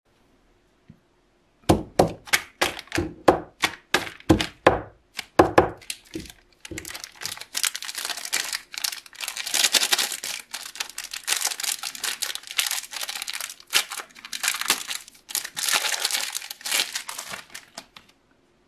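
Plastic wrapper of a Nestlé Nuts chocolate bar being handled and torn open by hand. First comes a string of sharp crackles, roughly two or three a second, for about five seconds. Then continuous dense crinkling and rustling as the wrapper is pulled open and the bar is taken out.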